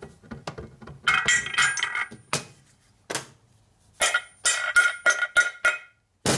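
Metal engine parts, an aluminium crankcase half and small steel pieces, clinking and rattling against a steel workbench as they are handled and set down. There are two runs of quick, ringing clinks, one about a second in and another about four seconds in, with a few single knocks between them.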